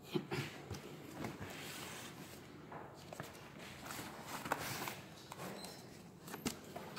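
Corrugated cardboard being handled: box flaps and a flat cardboard sheet scraping, rustling and knocking together irregularly, with a few sharp knocks just after the start, about four and a half seconds in, and about six and a half seconds in.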